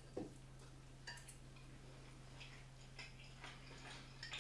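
Near silence: a steady low hum with a few faint scattered ticks and clicks.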